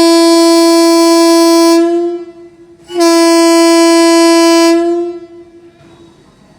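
Vande Bharat Express train horn sounding loud at one steady pitch, blown as the train departs. The first blast, already sounding, stops about two seconds in; a second long blast starts about a second later and dies away after nearly two seconds.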